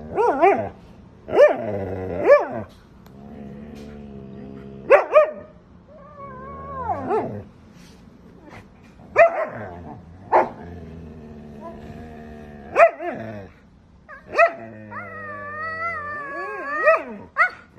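A dog barking and yipping again and again, with some longer howling calls that rise and fall in pitch.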